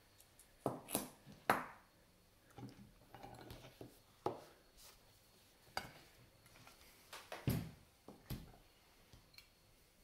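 Abloy Exec lock core being handled in a bench vise and set down on a table: a series of sharp metallic clicks and clinks, irregularly spaced. The loudest come about one and a half seconds in and around seven and a half seconds.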